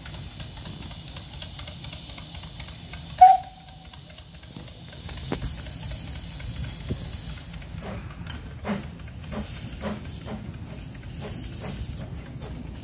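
A 1928 Orenstein & Koppel narrow-gauge steam locomotive gives one short whistle toot about three seconds in. From about five seconds it moves slowly with its cylinder drain cocks hissing steam, and even exhaust beats come about twice a second.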